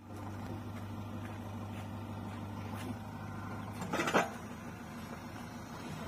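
Diesel engines of a JCB 3DX backhoe loader and a Mahindra 475 DI tractor running steadily with a low hum, with a brief louder clatter about four seconds in.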